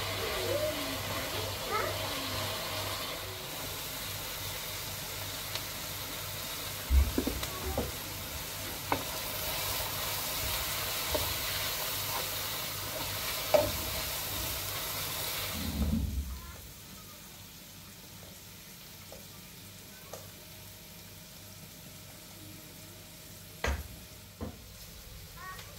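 Sliced onions and peppers sizzling in a frying pan while a wooden spatula stirs them, with occasional knocks of the spatula against the pan. About two-thirds of the way through the sizzle drops away to a much quieter level, leaving a few sharp knocks.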